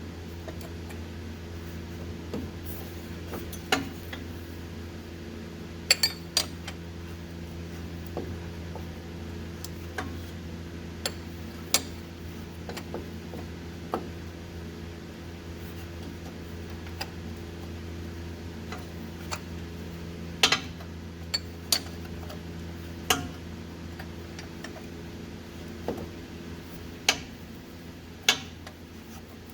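Wrench working the new starter's mounting bolts: scattered sharp metallic clinks and knocks of the tool against metal, irregular and a few seconds apart, over a steady low hum.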